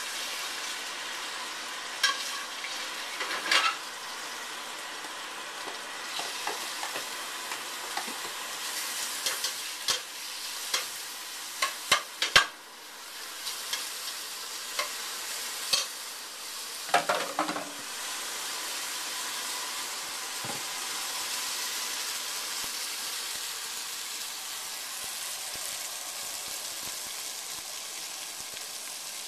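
Marinated lamb pieces searing in oil in a stainless steel pot, with a steady sizzle. A metal spatula scrapes and clicks against the pot as the meat is turned, mostly in the first half; after that the sizzle carries on almost alone.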